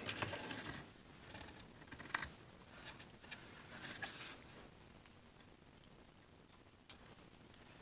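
Hands handling a small motorcycle carburetor and its plastic float on a workbench: faint light clicks and scrapes of small parts, with a brief rustle about four seconds in.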